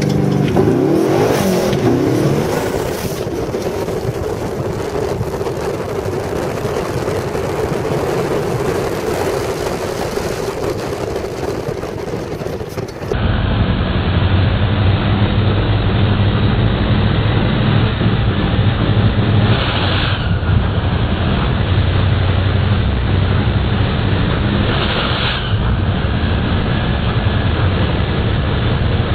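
Twin-turbo LS V8 engine of a high-horsepower sand rail revving and running hard, with a rise and fall in pitch about a second in. About halfway through the sound abruptly changes to a duller, steady engine drone, broken twice by short rushing bursts.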